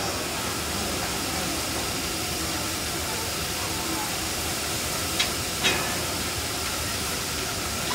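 Steady hiss of steam from the C62 steam locomotive standing under steam, with faint voices in the background. Two short, sharp metallic clicks come about five seconds in.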